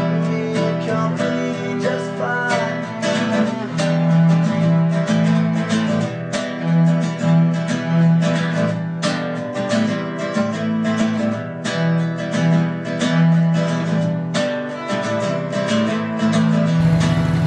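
Music with strummed acoustic guitar, steady strokes over held notes.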